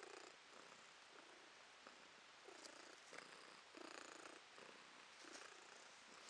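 Domestic tortoiseshell cat purring faintly, right at the microphone, the purr swelling and fading in pulses with her breathing.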